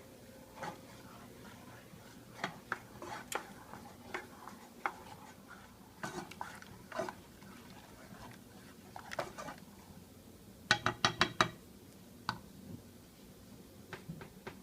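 A spoon stirring in a saucepan of melted butter, cocoa and water, clinking and scraping against the pan at irregular moments, with a quick run of about five sharp clinks around three-quarters of the way through.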